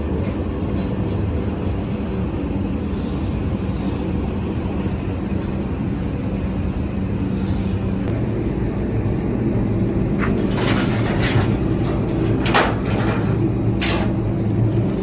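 An engine or motor-driven machine running steadily with a low hum. A few sharp knocks or clatters come about two-thirds of the way in.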